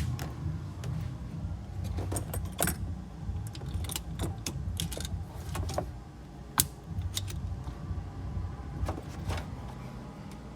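Metal clinks and rattles of battery clamps and cables being handled while a car battery is hooked up, as a string of short irregular clicks with one sharper clack a little past the middle, over a low steady rumble.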